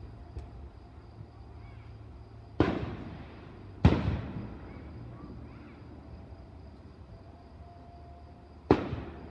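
Aerial firework shells bursting: two sharp bangs a little over a second apart, the second the loudest, and a third near the end, each trailing off in a rolling echo.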